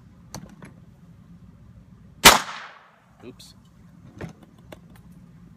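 One loud, sharp clack of a hard object dropped onto a hard surface, about two seconds in, ringing off over about half a second. Light handling clicks come before and after it.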